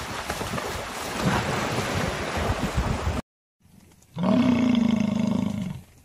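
Hippopotamus splashing through shallow water, with wind on the microphone. After a brief silence about three seconds in, a bison bellows: one loud, deep roar of nearly two seconds, the loudest sound here.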